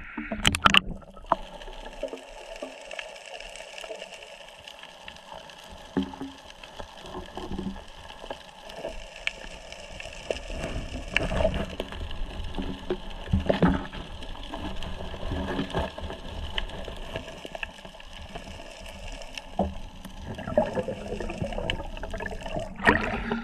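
Shallow water sloshing and splashing around the hands, with irregular knocks and splashes, over a steady faint high whine.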